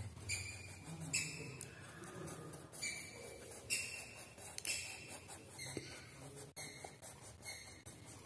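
Coloured pencil scratching on paper in repeated short colouring strokes, about one a second.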